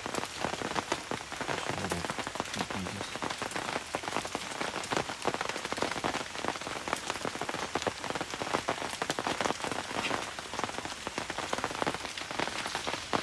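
Steady rain falling on a hard surface, a dense run of sharp drop hits over a continuous hiss.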